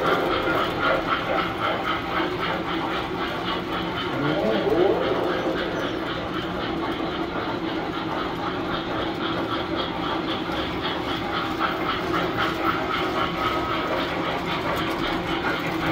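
Several tinplate electric toy trains running on three-rail metal track: a steady whirr and rumble of their motors and wheels, with a constant hum.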